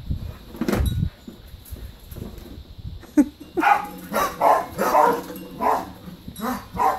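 Puppies yipping and whining, a run of short high calls about half a second apart starting about three seconds in, after a low rumble in the first second.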